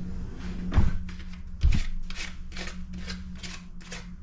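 Kitchen utensil work: two dull knocks, then a quick regular run of short scraping strokes, about three or four a second, with a low steady hum underneath.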